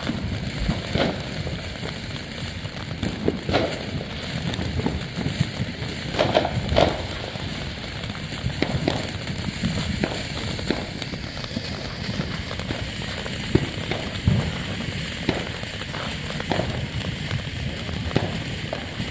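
TNT ground fountain firework burning: a steady hiss of spraying sparks, dotted with scattered crackles and pops.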